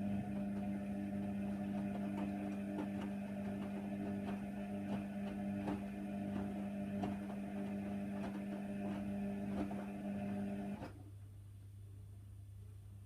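Washer dryer running mid-wash on a cotton cycle: a steady motor hum with faint clicks, which stops suddenly about eleven seconds in. This fits the drum motor turning the wash, then pausing.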